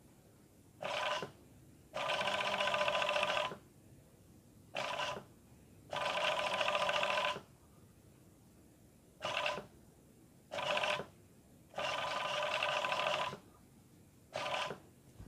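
Industrial overlock sewing machine stitching a picot edge in stop-start runs: eight short bursts of motor whine and rapid stitching, some about half a second and some about a second and a half long, with pauses between them while the cloth is repositioned.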